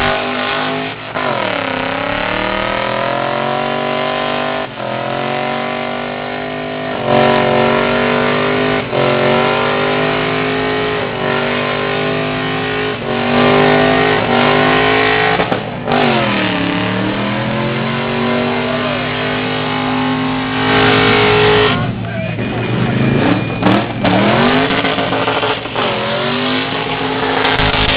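BMW car doing a burnout: the engine is held at high revs with the rear wheels spinning against the pavement. The revs dip and climb again several times.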